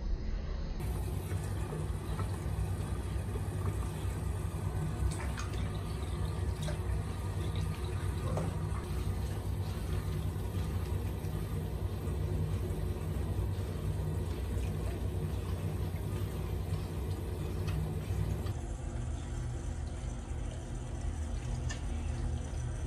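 Water running from a bathroom tap into a sink, with splashing as a baby monkey is washed. The sound shifts abruptly about a second in and again a few seconds before the end.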